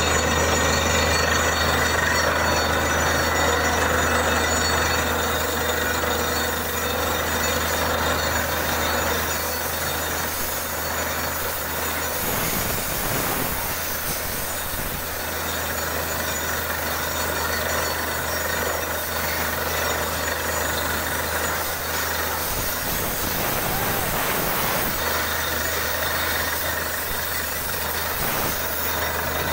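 Borewell drilling rig running steadily: a constant low engine drone under a loud, even hiss.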